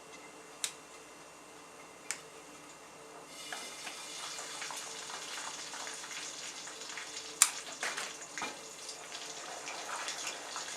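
Kitchen tap turned on about a third of the way in, water running in a steady hiss, with a few sharp clicks before it and one loud click a little past the middle.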